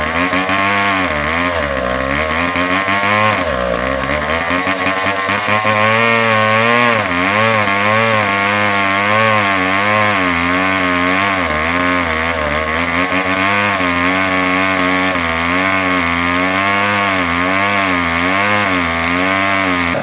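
Tecogold 700 chainsaw cutting under load through a bengkirai hardwood trunk during felling, its engine pitch wavering up and down as it bogs and picks up again. The saw drops away at the very end.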